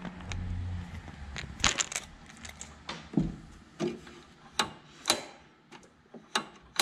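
Hand tools and small metal parts clicking and clinking, about eight sharp, irregularly spaced clicks, while a choke cable is fitted to the control bracket of a Kawasaki V-twin mower engine.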